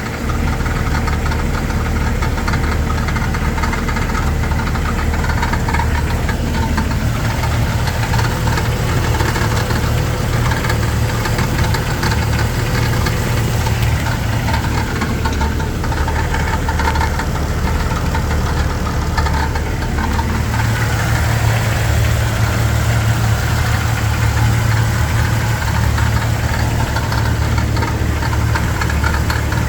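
Jeep Wrangler TJ engine running steadily with a rattling noise, a fault whose cause is not known.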